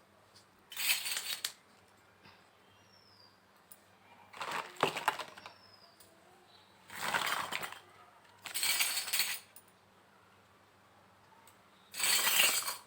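Small hard pieces of a miniature toy kitchen set clinking and rattling as they are handled, in five short separate bursts.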